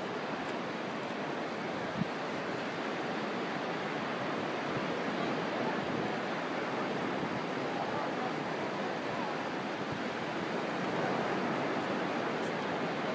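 Surf washing on a beach: a steady, even rush of water noise that never breaks, with one faint click about two seconds in.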